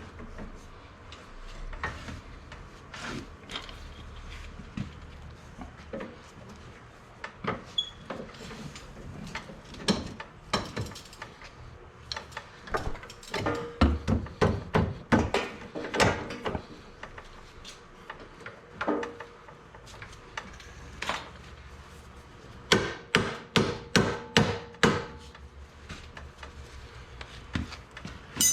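Hammer striking metal suspension parts while a UTV trailing arm is fitted: scattered knocks, then quick runs of blows about three or four a second, twice.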